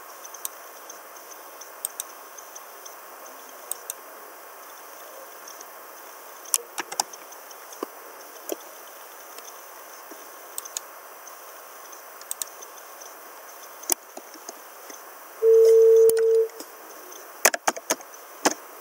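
Computer keyboard keys clicking in scattered taps and short runs as text is typed, with a louder cluster of clicks near the end, over a steady hiss. A steady beep lasting about a second sounds about fifteen and a half seconds in and is the loudest sound.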